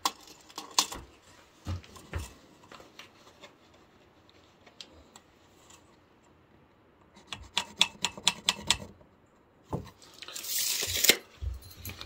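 Steel tape measure and pencil handled on a wooden 2x4 while measuring and marking a cut: scattered light clicks and taps, a quick run of sharp clicks about seven seconds in, then a short sliding rush near the end as the tape comes off the board. The saw is not running.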